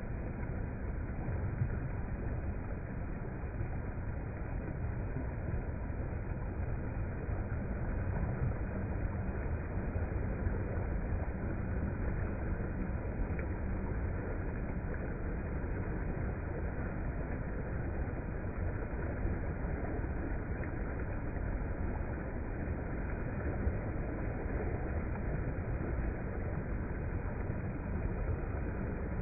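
Steady rushing of fast-flowing river water, an even roar with no breaks.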